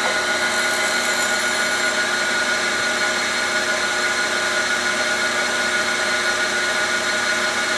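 A cylindrical grinder's wheel spinning at a steady whine while it takes a light finishing pass on a steel shaft, the infeed only about a quarter thousandth of an inch.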